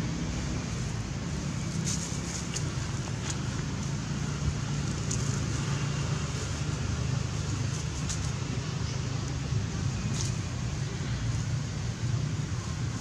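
Steady low background rumble, with a few faint short clicks scattered through it.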